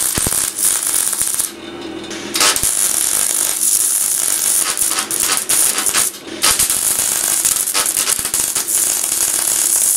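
Electric arc welding on a steel fuel tank: the arc crackles steadily, breaking off twice, about a second and a half in and just after six seconds, before striking again.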